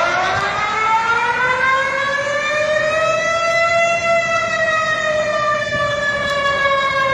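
Warning siren from an emergency alert alarm: one wailing tone that rises in pitch for about four seconds, then slowly falls.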